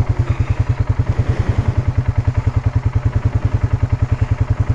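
Polaris Sportsman 570 ATV's single-cylinder engine idling with a steady low chug of about ten beats a second.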